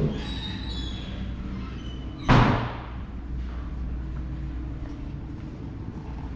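A single loud bang about two seconds in that trails off briefly, over a steady low hum.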